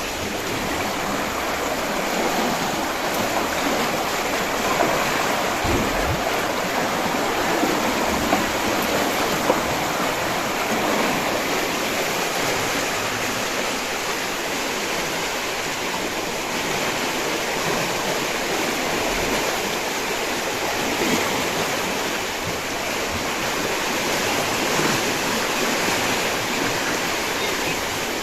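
River floodwater rushing steadily through a sluice gate into a canal.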